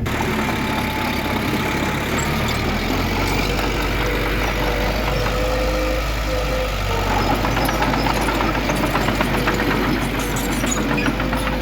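Diesel engine of heavy earthmoving machinery running steadily, with a thin steady whine and a light rattle that thickens from about halfway.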